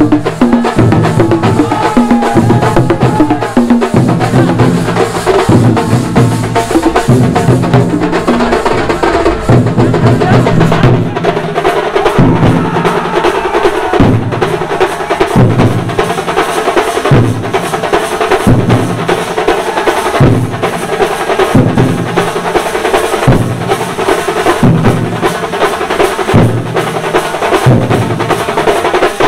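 A thambolam drum troupe playing together, many drums struck with sticks in a fast, loud rhythm over a heavy beat that lands about once a second.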